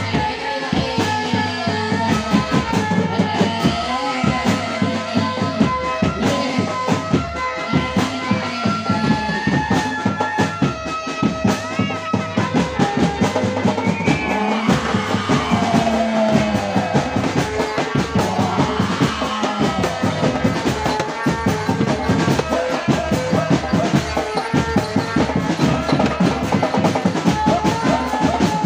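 Loud dance-accompaniment music: fast, dense drumming with bass drum under a held, droning melody line.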